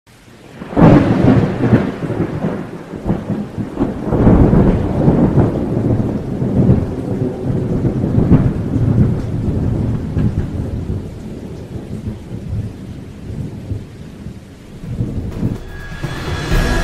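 Thunder rolling over rain, with a loud crash about a second in and further rolls around four and eight seconds. Music comes in near the end.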